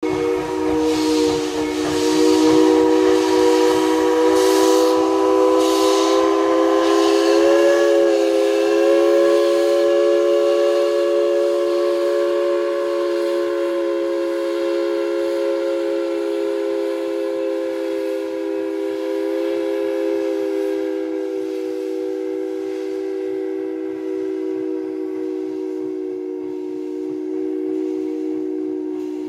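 Narrow-gauge steam locomotive's chime whistle blowing one long, steady chord, with a slight waver about eight seconds in. Puffs of steam exhaust and hiss sound under it for the first several seconds.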